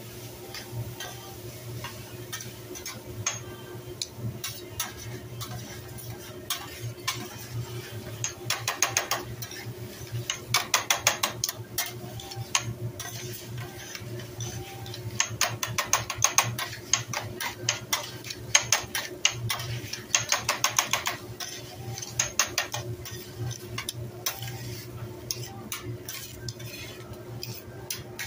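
Metal spatula and fork clattering against a steel teppanyaki griddle as egg is chopped and mixed into fried rice. The strikes come in several quick runs of rapid clicks over a steady low hum.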